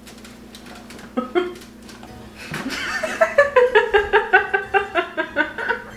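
Women laughing hard. A few soft snickers come first, then about halfway in a long run of quick ha-ha pulses, about five a second.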